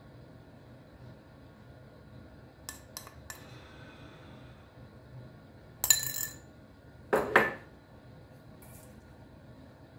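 A metal spoon clinking lightly against a small ceramic ramekin three times, then two louder clatters of the spoon and dish being set down, the second heavier and lasting a little longer.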